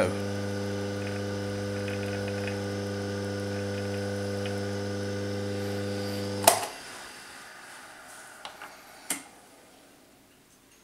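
Schaublin 102 lathe running with a steady electric hum while a hardened steel riveter is pressed against the spinning brass clock wheel to rivet it onto its arbor. About six and a half seconds in there is a sharp click, the hum stops abruptly and the lathe runs down, followed by a few light clicks.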